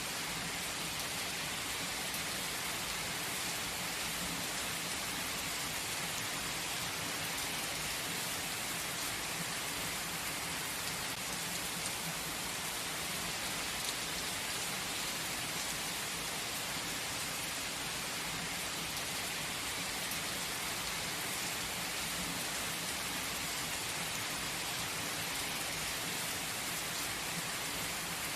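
Steady, gentle rain falling, an even hiss of many small drops with no let-up or change.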